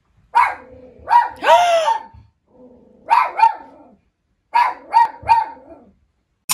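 Nine-month-old Bernese mountain dog barking in three quick bunches of two or three barks, with one longer rising-and-falling yowl about a second and a half in.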